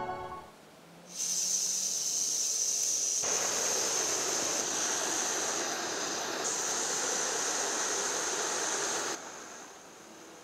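Small backpacking gas stove burning with a steady hiss, starting about a second in; a fuller rush joins about three seconds in, and about nine seconds in it drops suddenly to a faint hiss.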